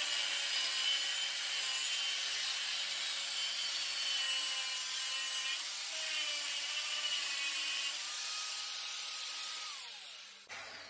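Angle grinder with a cut-off disc cutting through a tractor's metal exhaust pipe, taking off the old flange. The cutting hiss is steady, and the motor's whine rises and drops with the load. Near the end the grinder is switched off and winds down.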